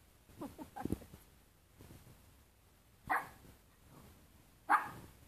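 Small dog barking sharply twice, about three seconds in and again near the end, with a few quieter, falling pitched sounds about half a second to a second in.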